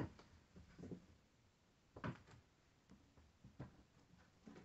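Kittens moving around: a few faint, scattered soft thumps and scuffs, the clearest about two seconds in, over near silence.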